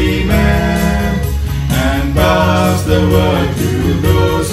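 Music with singing: a school song performed over an instrumental accompaniment with a steady beat.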